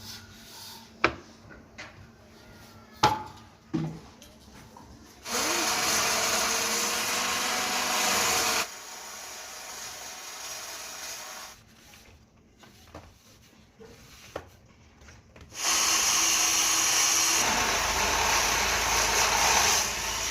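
A power tool running in two bursts of a few seconds each, starting and stopping abruptly, after a few sharp knocks.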